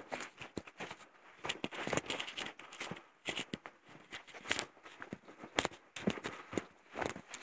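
Footsteps crunching on dry leaf litter and dirt along a forest trail, a quick uneven run of crackling steps, several a second.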